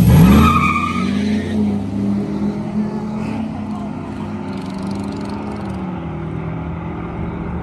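Chevrolet Silverado SS pickup's V8 launching hard off the drag-strip line, revs shooting up as the rear tyres spin badly. The engine note then holds steady as the truck pulls away down the track.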